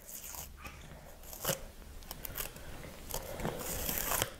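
A small folded paper slip, damp from being sucked on, being unfolded by hand: an irregular run of soft paper crackles and rustles, a little louder near the end.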